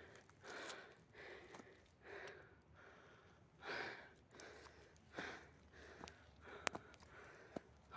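A person breathing hard in quick, regular puffs from the exertion of climbing a steep trail, with a few sharp clicks, the loudest near the end.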